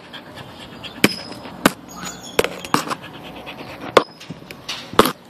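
A dog's tongue and mouth licking and bumping against the camera: a run of sharp, wet-sounding clicks and knocks, about seven in five seconds.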